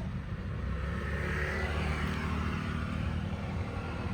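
A car passing by on the road, a steady low rumble with tyre and engine noise that swells about a second and a half in and fades again.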